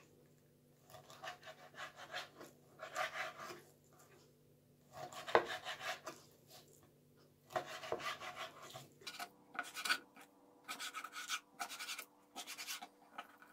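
Long kitchen knife slicing through raw coho salmon into portion pieces and scraping on a wooden cutting board, in a series of short strokes, with a sharper knock of the blade on the board about five seconds in and quicker strokes near the end.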